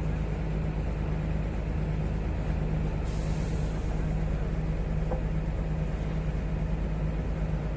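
Mobile crane's engine running steadily with a low hum while it holds a bundle of steel rebar on its chains, with a short hiss about three seconds in.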